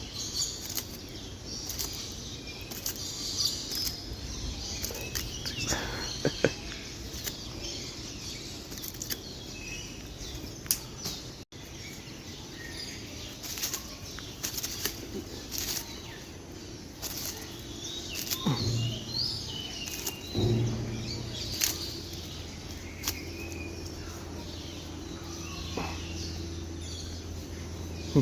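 Small birds chirping in the background, with scattered sharp taps and rustles close to the microphone. A low steady hum comes in about two-thirds of the way through.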